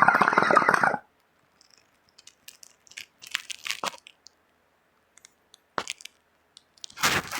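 Bong water bubbling as smoke is pulled through it, stopping about a second in. Scattered small clicks follow, then a short noisy burst near the end.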